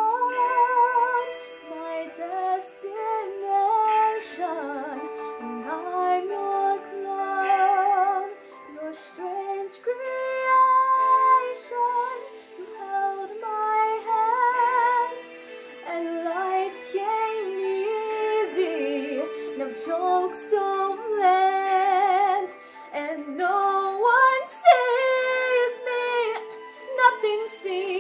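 A young woman singing solo, with a wide vibrato on long held notes, over a steady musical accompaniment.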